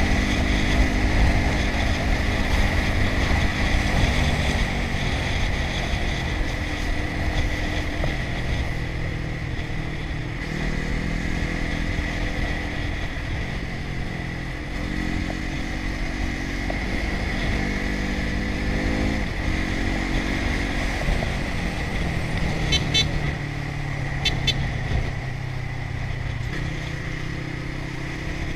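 Motorcycle engine heard from the rider's seat while riding on a highway, its pitch stepping up and down every few seconds with gear changes and throttle, over steady wind and road noise.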